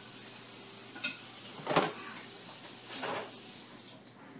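A steady hiss with a few light knocks, the loudest a little under two seconds in; the hiss drops away near the end.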